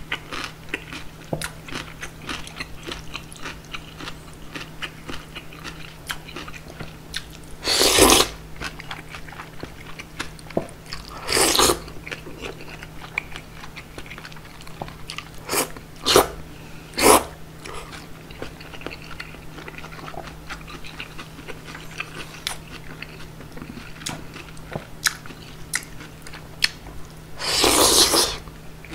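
Close-miked eating of cold bean-soup noodles (kongguksu): steady chewing with many small mouth clicks, broken by several loud slurps of noodles. The longest slurp comes near the end.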